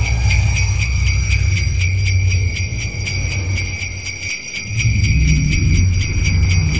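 Sleigh bells jingling in a steady rapid shake, about six shakes a second, over a low rumble that drops out briefly past the middle.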